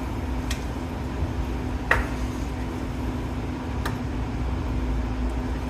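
Metal lathe running with a steady motor hum, machining a turbo compressor housing. Three brief sharp clicks sound over it.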